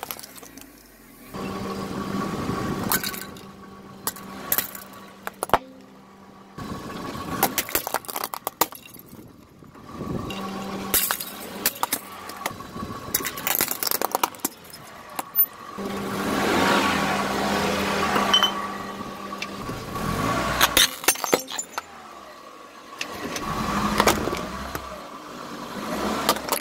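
Hard plastic objects, disposable lighters among them, cracking, snapping and crunching under a slowly rolling car tyre, in several separate bouts of sharp cracks with quieter gaps between. The car's engine runs underneath.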